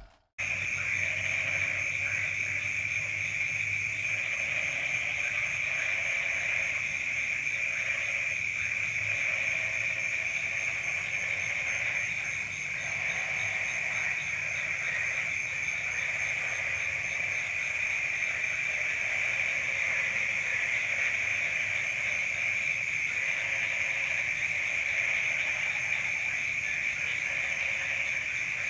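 Dense, steady chorus of night animals in a rice field, mostly insects: a continuous high-pitched trilling with fainter shrill tones above it, and lower calls that come and go underneath. It starts abruptly just after the start.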